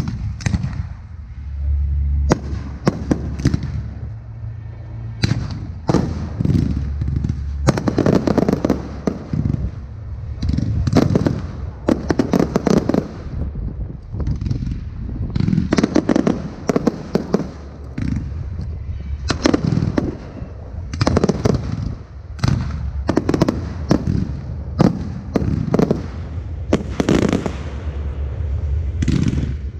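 Aerial firework shells bursting overhead in quick succession: many sharp bangs, often in clusters, with a few short lulls.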